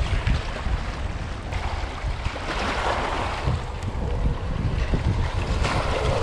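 Wind buffeting the microphone with a heavy, gusty rumble, while small waves wash and splash against shoreline rocks. The splashing swells about halfway through and again near the end.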